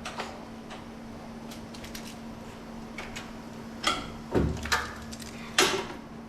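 Valve seat cutting machine running with a steady hum as it trims the intake seat of a Brodix cylinder head, with a few metallic clanks and knocks about four seconds in and again near the end.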